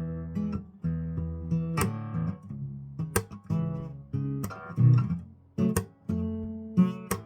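Solo acoustic guitar playing an instrumental passage of ringing picked chords, with a sharp strum roughly every second and a half.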